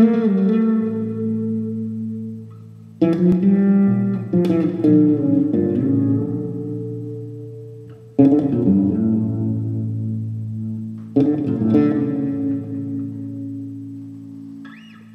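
Fender Jazz fretless electric bass playing chords that are struck and left to ring, each fading slowly. A two-chord phrase comes in at the start and plays again about eight seconds later.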